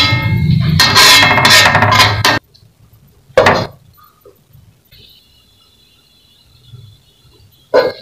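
Guitar music over a metal spatula scraping in an aluminium wok, cutting off suddenly about two and a half seconds in. About a second later an aluminium lid clanks down on the wok, the covered food simmers with a faint steady hiss, and the lid clanks again as it is lifted near the end.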